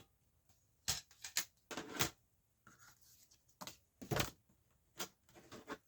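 CD box set packaging being handled: cardboard sleeves and booklets scraping and clicking in a string of short, separate sounds, about seven over several seconds.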